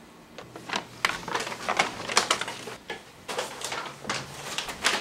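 Brown paper takeout bag being handled and crinkled: a run of irregular crackles and rustles.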